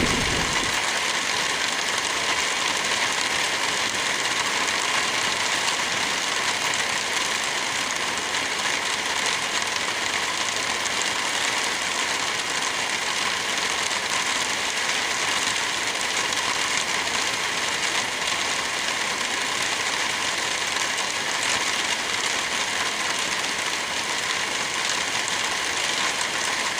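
Steady rain falling, an even hiss with no breaks. The last of a low thunder rumble fades out in the first second.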